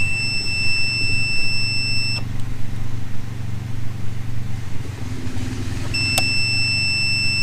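Outboard wiring's electronic warning buzzer sounding a steady high beep for about two seconds, stopping, then sounding again after a click about six seconds in, as live wires are tested in a miswired ignition harness. A steady low hum runs underneath.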